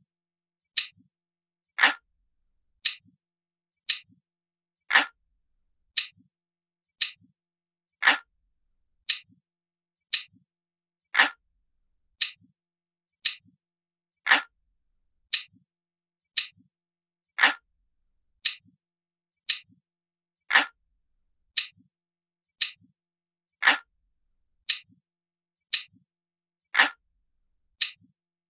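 Crisp, glass-like clock ticking: one sharp tick about every second in a steady rhythm, each followed by a much fainter light click.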